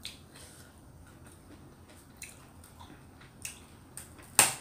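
A person chewing a mouthful of stir-fried fern greens, with soft mouth and lip sounds and a few small clicks, then one sharp click near the end.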